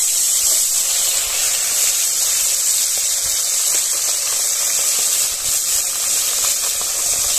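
Small whole bhetki (barramundi) frying in well-heated oil in a kadai: a loud, steady sizzle from fish just added to the pan.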